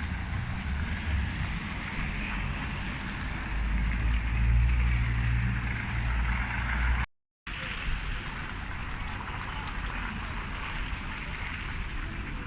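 Strong wind buffeting the microphone, a heavy low rumble with a steady rushing hiss above it, gusting harder about four to seven seconds in. The sound cuts out completely for about half a second a little past the middle.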